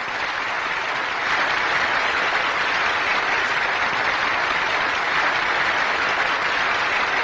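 A crowd of children applauding, a steady even clatter of many hands clapping.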